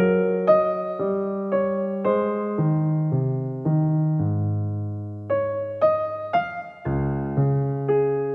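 Background music: a slow solo piano melody, notes struck about twice a second, with one longer held low note in the middle.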